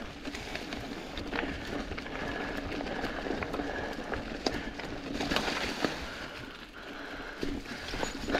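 Mountain bike riding along a dirt singletrack strewn with dry leaves: tyres rolling over the leaves and dirt, with scattered sharp clicks and rattles from the bike.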